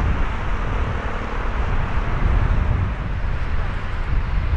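Steady low rumble of a Boeing 777-300ER's jet engines heard across the airfield, mixed with wind buffeting the microphone.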